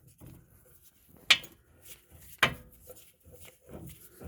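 Metal tools and parts clanking together: two sharp metallic clanks about a second apart, with fainter knocks between.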